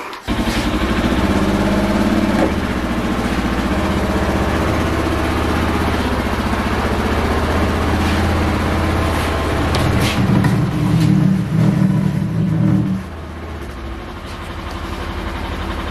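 A motor runs steadily while a hog carcass is hoisted off the floor by its hind legs on a rope. It works louder and rougher for a few seconds before dropping to a lower, quieter running level near the end.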